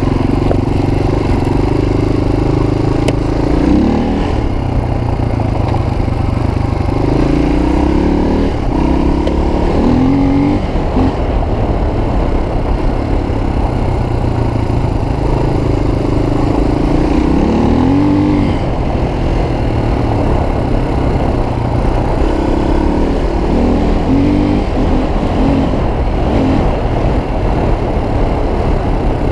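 Suzuki DR350's single-cylinder four-stroke engine running under load, the revs climbing and falling back several times as the bike accelerates and changes gear.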